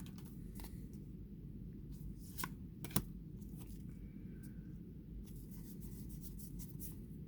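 Pokemon trading cards being handled and slid one past another, with a few light clicks near the start and around two and a half to three seconds in, over a steady low hum.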